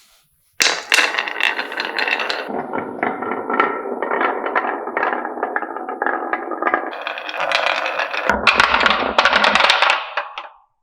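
Many marbles clattering and rolling down wooden marble-run tracks, a dense rattle of small clicks that starts suddenly and dies away near the end.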